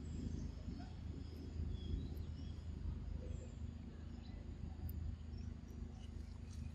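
Outdoor woodland ambience: a steady low rumble, with faint high chirps of insects and birds scattered through it.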